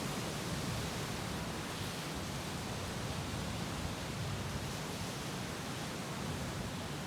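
Sea waves washing against rocks: a steady rushing hiss with no separate crash of a single breaker.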